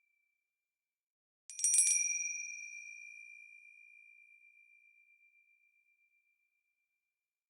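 A small, high-pitched bell is struck several times in quick succession about a second and a half in, then rings on and fades out over about four seconds.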